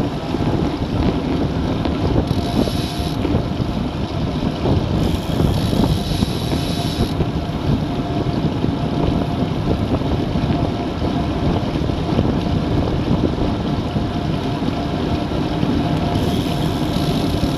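Wind rushing over the microphone of a camera on a road bike riding at about 35 km/h: a loud, steady, low rumble.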